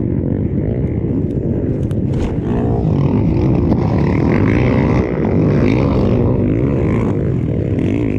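Several motocross motorcycles racing at once, their engines revving up and down in overlapping waves of pitch.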